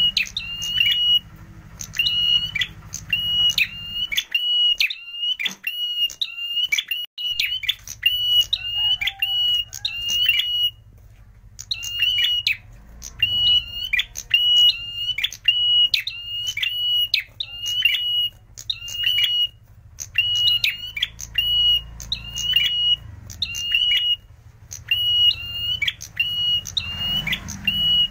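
Caged prenjak merah, a small grey songbird with a rufous crown, calling in fast runs of sharp, high, piercing chirps on one pitch, several a second. The runs come in phrases broken by short pauses, the longest about halfway through.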